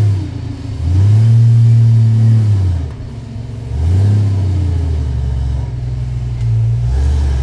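Off-road 4x4's engine revving in bursts as it climbs a steep dirt slope: the revs rise about a second in, hold, drop back near three seconds, then rise again and settle into steady running under load.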